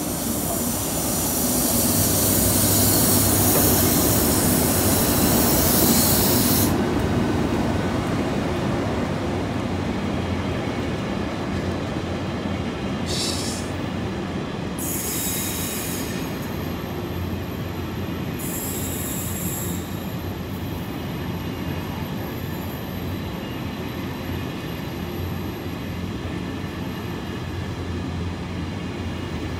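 Pair of Class 90 electric locomotives passing at speed, hauling an intermodal container freight train. It is loudest with a strong hiss as the locomotives go by, then settles into the steady rolling rumble of the container wagons, with a few brief high-pitched wheel squeals midway.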